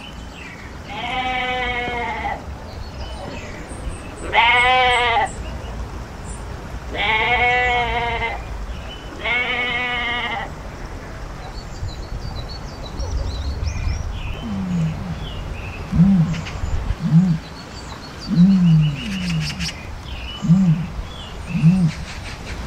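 Goats bleating: four long, wavering bleats in the first ten seconds. From about fourteen seconds a different animal takes over, an ostrich giving a run of short, deep, grunting calls.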